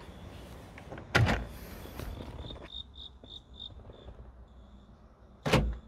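Kia Morning's central door-lock actuators clunking twice, about four seconds apart, worked by the call button that has been rewired to the door-unlock circuit. Between the clunks comes a short run of faint, quick, high beeps.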